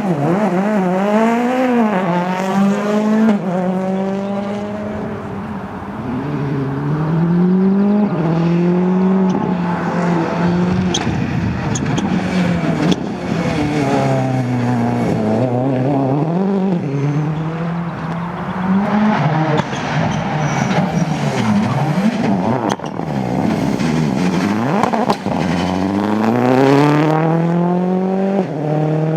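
Rally car engine being driven hard: the revs climb in steps through the gears, drop off, and climb again several times. The last strong rise comes near the end.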